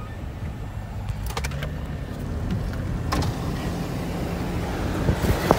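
Road and engine noise inside a moving car, growing steadily louder as the side window opens, mixed with the rolling rumble of a freight train of empty coal cars running alongside; a few sharp knocks near the end.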